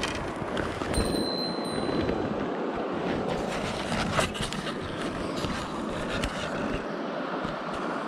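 Shallow mountain stream running over stones: a steady rush of water, with scattered small clicks and knocks, the sharpest about four seconds in, and a short high thin tone about a second in.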